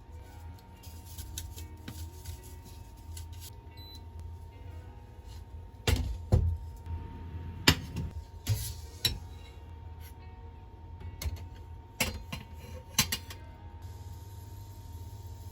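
Kitchen handling sounds: several sharp knocks and clatters, as of dishes, utensils or a cupboard door, over a steady low hum.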